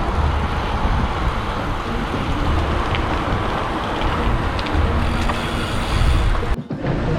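Steady rush of wind and road noise while cycling along a road with traffic, gusting in the low end. The sound briefly drops out and changes near the end.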